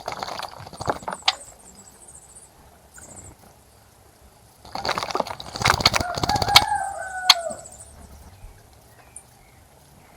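Small birds bathing in a bird bath, flapping their wings in the water in two splashy bouts, one at the start and a longer one a few seconds later. A rooster crows once in the background during the second bout, and small birds chirp faintly.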